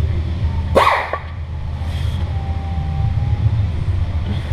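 A single sharp metallic clunk about a second in as the one-piece aluminum driveshaft's slip yoke is pushed onto the transmission output shaft splines, over a steady low hum.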